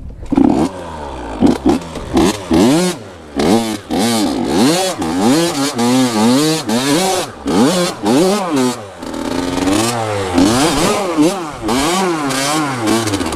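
Dirt bike engine revving up and down over and over, its pitch rising and falling about once a second, with short sharp knocks scattered through.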